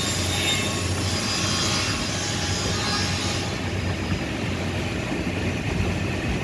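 Steady whir of an electric motor, with a high hiss that drops away about three and a half seconds in.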